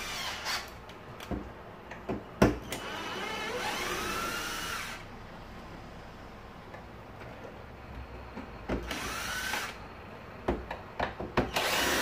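Electric screwdriver with a T15 Torx bit whirring in three short runs, its pitch rising as the motor spins up, backing out Torx screws from a vacuum cleaner's plastic housing. A sharp click comes just before the first run, and a few lighter clicks come before the last.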